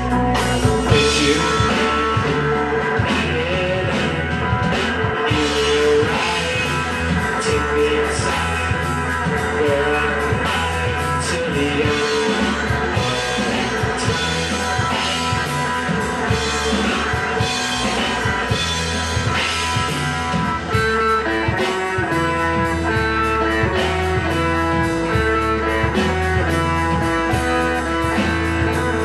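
Live rock band playing an instrumental passage: electric guitars over a drum kit. In the second half a guitar picks out a run of distinct single notes.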